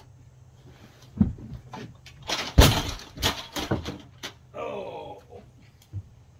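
A ladder toppling over with a man tied to it: a string of crashes and clattering knocks, the loudest about two and a half seconds in, with a few smaller knocks after it.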